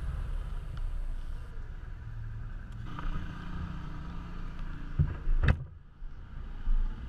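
Low rumble of ATV and side-by-side engines running at low revs, with two sharp knocks about five seconds in.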